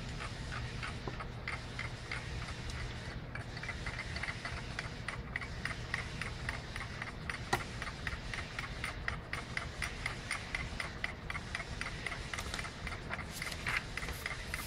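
Magnetic stirrer running, its stir bar spinning in a glass beaker with a rapid, even ticking over a low hum. One sharper click sounds about halfway through.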